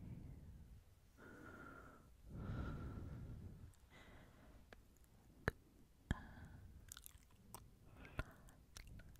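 Close-miked ASMR mouth sounds: soft breathy exhales over the first few seconds, then a scatter of sharp wet mouth clicks.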